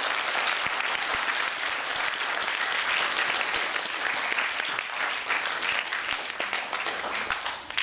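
Audience of school students applauding at the close of an assembly, many hands clapping, thinning out near the end.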